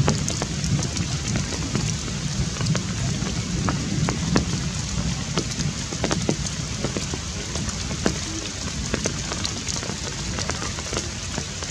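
Steady rain falling through forest foliage, with many separate drops ticking sharply on leaves and branches close by.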